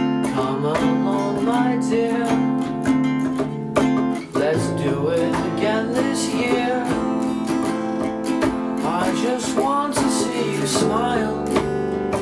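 Acoustic guitar playing a song's instrumental introduction: held chords with a melody line moving over them. The bass notes change about four seconds in.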